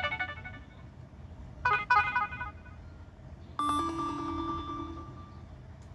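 HTC One E9+ notification tones played one after another: the tail of one chime fades at the start, a short two-note chime sounds about two seconds in, then a longer single tone starts about three and a half seconds in and rings on, fading out.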